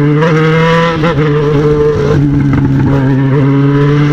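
Yamaha XJ6's inline-four engine with a 4-into-1 straight-pipe exhaust, pulling under acceleration on the road: a loud, steady engine note with a brief dip about a second in.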